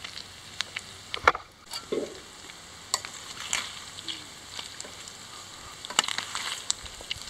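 Shredded cabbage, onion and carrot frying in a metal pan, with a faint sizzle and scattered crackles, and the scrape and clink of a utensil stirring the vegetables.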